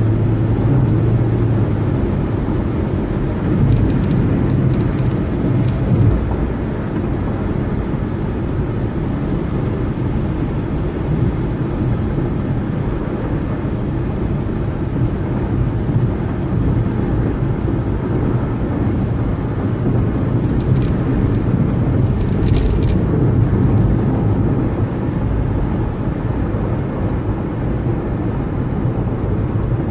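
Steady road noise of a car driving at freeway speed: a continuous low rumble of tyres and engine, with a few brief swells of higher hiss.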